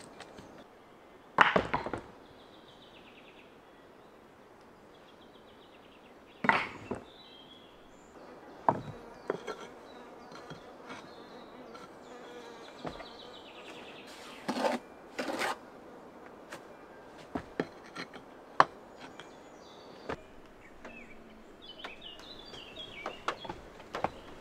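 Flat stone slabs clacking and knocking against each other as they are lifted and set into a stone wall: irregular sharp knocks, a few of them loud. Short buzzing trills of an insect come and go in the background.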